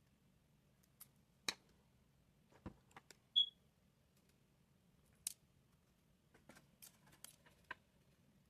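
Scattered small clicks and taps of small tools and phone parts being handled at a repair bench, with one short high-pitched beep about three and a half seconds in.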